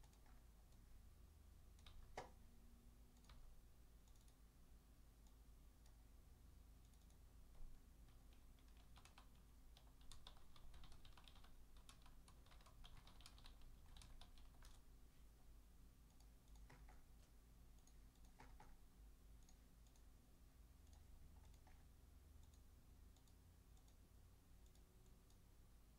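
Faint typing on a computer keyboard: scattered key clicks, busiest about ten to fifteen seconds in, over a low steady hum.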